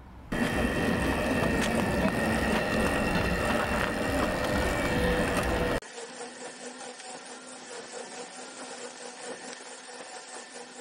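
Electric go-kart driving at speed: its 1000 W brushless motor whines steadily over a noisy rush. About six seconds in, the sound cuts abruptly to a quieter, thinner recording of the kart still running.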